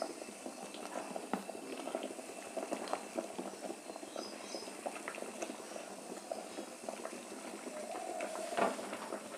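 Water boiling in a steel pot with rice-flour dumplings in it, on a gas flame turned to full: a steady bubbling with many small pops. A single knock near the end.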